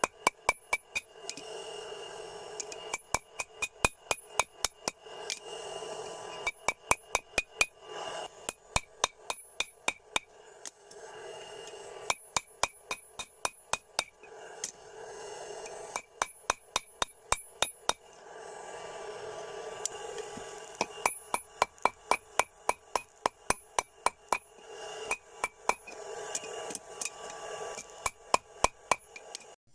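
Hammer blows on steel over an anvil, struck in quick runs of about five a second with a bright metallic ring and short pauses between runs: hand-forging the steel of an old bearing into a knife blank. A steady rushing noise continues underneath the blows.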